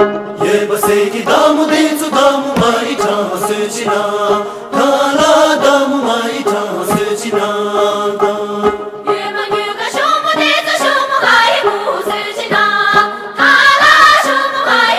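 Tibetan folk dance song: a group of voices singing together over a steady low drone note, with sharp beats throughout.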